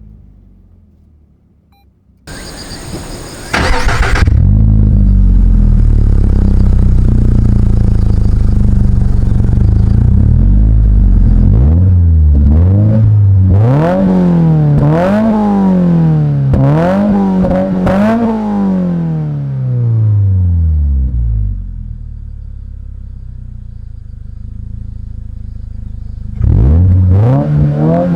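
Toyota GR86's flat-four engine breathing through a Fujitsubo AR-M aftermarket exhaust. It cranks over and starts about two seconds in and runs at a fast idle. It is then blipped through about five quick revs that rise and fall, settles to a quieter idle, and revs again near the end.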